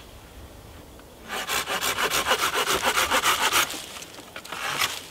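Folding hand saw cutting through a wooden pole. Quick, even back-and-forth strokes start about a second in and stop a little past halfway, followed by quieter scraping.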